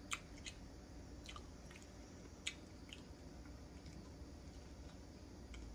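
Faint sounds of a person biting into and chewing a cheesy garlic bread roll, with a few short wet mouth clicks scattered through.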